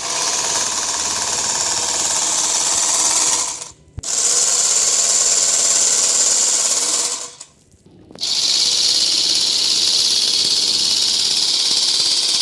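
Portable electric bag-closing sewing machine running as it stitches a woven polypropylene sack shut. It stops briefly twice, about four seconds in and again about seven and a half seconds in.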